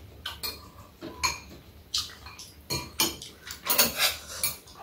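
Metal spoons and chopsticks clinking and scraping against ceramic bowls while eating soup: irregular sharp clinks, coming more thickly near the end.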